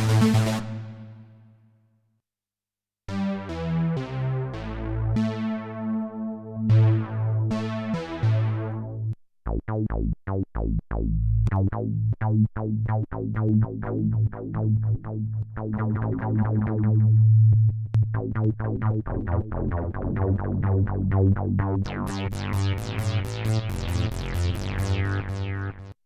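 Cherry Audio DCO-106 software synthesizer, a Juno-106 emulation, playing bass presets in turn. A held tone fades out over the first two seconds; after about a second of silence come bass phrases whose notes start bright and close down quickly, then from about nine seconds in a busier run of short, punchy bass notes that turn brighter near the end.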